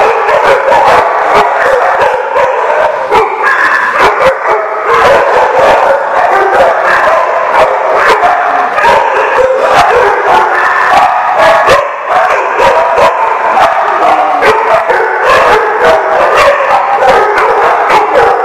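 Many dogs barking and yipping at once: a loud, continuous din of overlapping barks with no pause.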